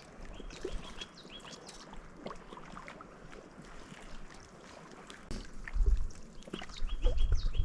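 Wind buffeting the microphone, with light water lapping and scattered small clicks; the wind gusts much harder about two-thirds of the way in, with a heavy low rumble.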